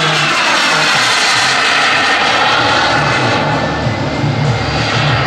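Turbine engine of a radio-controlled Panavia Tornado model jet flying past: a loud, steady jet roar whose whine falls in pitch over the first two seconds as the jet goes by.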